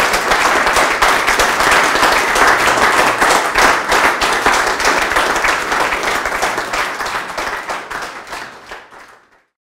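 Audience applauding, a dense run of many hands clapping that fades away near the end.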